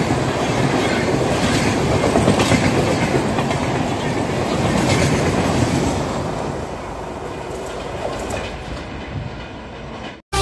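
Express passenger train passing at speed close by: a heavy rumble of coach wheels on the rails with sharp clickety-clack strokes. About six seconds in the last coach goes by and the sound drops away as the train recedes, cutting off just before the end.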